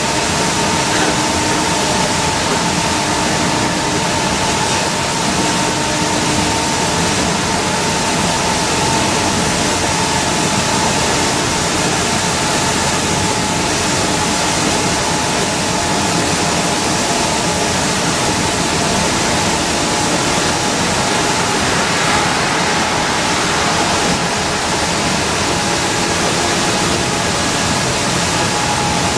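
Steady cabin noise of an Orion V transit bus cruising on a wet highway: a constant hiss of tyres on rain-soaked pavement over the drivetrain's drone, with a faint steady whine.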